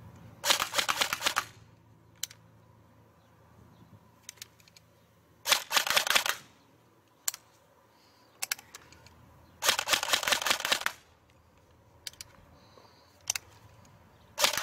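LCT LTS-13.5 Keymod airsoft electric gun (AEG) firing short bursts of about a second each, a rapid mechanical clatter of the gearbox cycling, about four seconds apart. Scattered single sharp ticks fall between the bursts.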